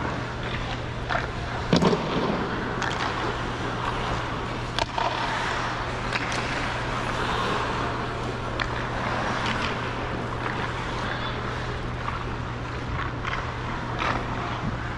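Ice skate blades gliding and scraping across rink ice over a steady low hum, with a sharp knock about two seconds in and a smaller one near five seconds.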